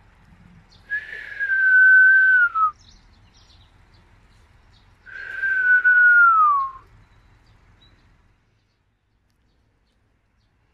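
Two long whistled notes, each held about two seconds at a steady pitch, with a breathy hiss above, and dropping in pitch at the end.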